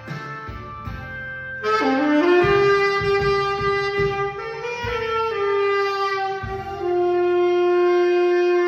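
Tenor saxophone played dry, with no reverb, over a backing track in D minor: it enters with an upward scoop about two seconds in, plays a short phrase, and settles into a long held final note.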